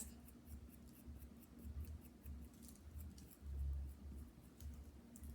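A tool scratching texture marks into leather-hard clay: a run of faint, short scrapes and ticks, with a few dull low bumps.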